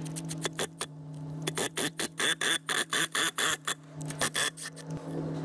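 Cordless impact driver pulsed in short trigger taps, about three to four bursts a second, driving a self-tapping bolt down to cut threads into an unthreaded bolt hole in a new mower-deck spindle housing.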